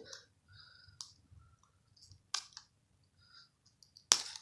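Plastic wrap on a slime container being picked at with the fingers: faint crinkling with a few sharp clicks, the loudest near the end.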